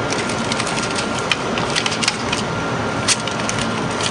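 Scattered crinkles and clicks of thermal-transfer ribbon film and its plastic roll being handled in an open Zebra label printer, over a steady hiss.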